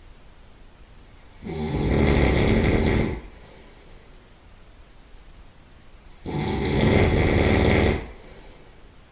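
Loud nasal snoring from a sleeping person: two long snores about five seconds apart, each lasting well over a second.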